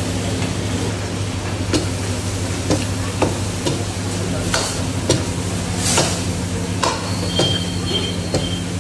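Mutton frying in a steel kadhai over a gas burner, sizzling while a long steel ladle stirs it, knocking and scraping against the pan about once a second over a steady low hum. A thin high scraping squeal of metal comes in near the end.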